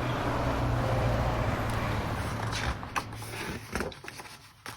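Sound effect of a car driving past at night, its engine hum swelling slightly and then fading away over about three seconds, followed by a few faint clicks near the end.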